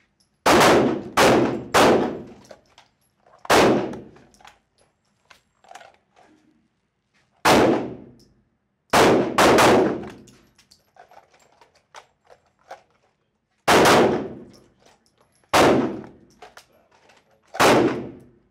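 Pistol shots, about ten in all, fired singly and in quick runs of two or three, each followed by a short ringing echo.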